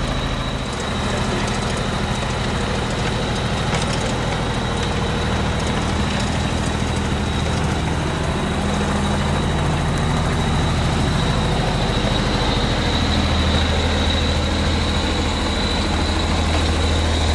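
Diesel engine of a Vögele Super-Boy asphalt paver running steadily, its pitch shifting slightly a couple of times, with a thin high steady whine above it.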